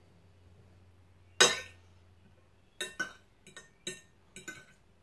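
A metal fork clinking against a china plate as it pulls cooked rabbit meat apart: one sharp clink about a second and a half in, then a quick run of about six lighter clinks.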